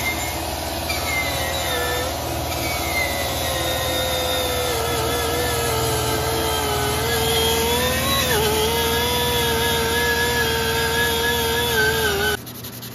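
Angle grinder running with an abrasive disc against the steel bicycle frame. Its whine sags and wobbles in pitch as the disc bites, then cuts off near the end.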